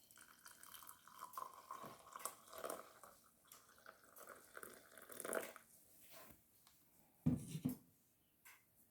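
Faint dripping and trickling of liquid with scattered light clicks, then two dull thumps in quick succession near the end.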